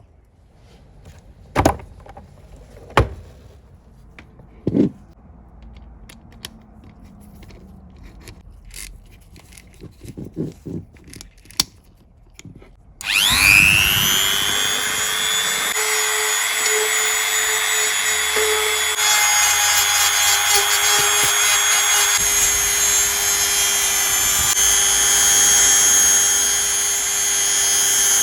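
Three sharp knocks and scattered small clicks, then about halfway through an electric power tool spins up with a rising whine and runs steadily at a high pitch.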